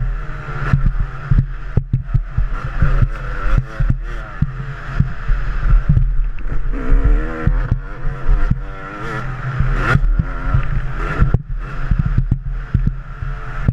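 Motocross dirt bike engine revving up and down as it rides, with heavy wind rumble on a helmet-mounted microphone and frequent short knocks and clatter.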